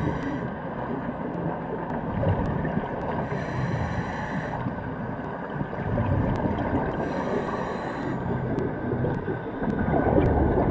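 Underwater sound from a diver's camera: a scuba regulator breathing in a slow cycle, a short hiss on each inhale about every three and a half seconds, followed by low rumbling bubbles on the exhale, over a steady underwater hum with faint clicking.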